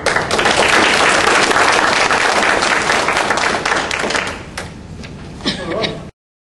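Audience applauding, thinning out after about four seconds, with a few voices near the end before the sound cuts off suddenly.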